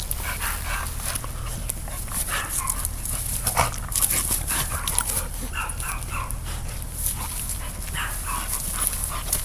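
Two dogs play-fighting, one a young bully pit bull: a run of short, high-pitched dog whines and yips over and over, mixed with sharp clicks and scuffling.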